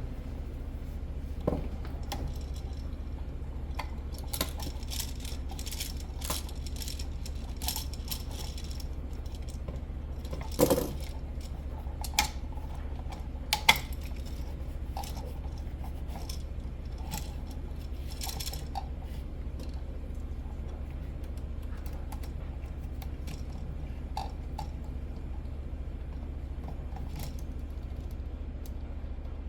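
Small metallic clicks and clinks of hand tools, screws and wires being handled while an outlet is wired, with a few sharper knocks around the middle, over a steady low hum.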